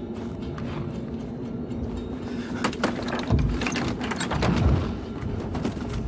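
Tense, low droning film score, with sharp clicks and two deep thuds about three and a half and four and a half seconds in.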